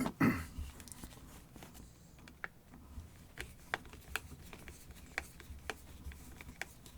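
Sparse light clicks and ticks of small screws and a screwdriver being handled as the angle grinder's plastic housing is unscrewed.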